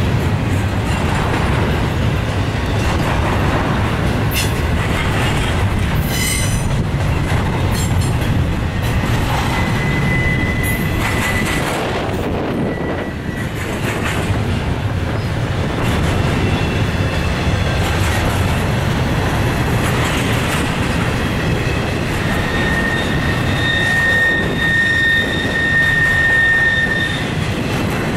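Union Pacific double-stack container train rolling past close by: a steady low rumble of steel wheels on rail with a few sharp knocks. A thin, high squeal from the wheels comes briefly a third of the way in and again for several seconds near the end.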